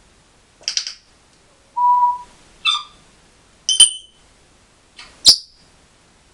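African grey parrot whistling and calling: five short separate calls, one a steady whistled note about two seconds in, the two near the end sharp and loudest.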